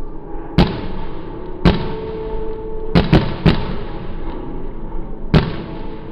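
Aerial fireworks bursting overhead: six sharp bangs at irregular intervals, three of them close together about three seconds in, over a steady background noise.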